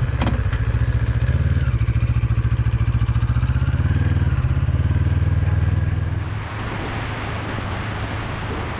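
CFMoto 650NK's parallel-twin engine running with an even, pulsing exhaust note as the bike pulls away and gets under way. About six seconds in, wind noise on the camera microphone rises with speed and largely covers the engine.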